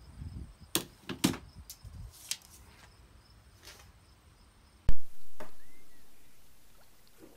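A few light knocks and clicks, then a single loud thump about five seconds in that dies away over about two seconds.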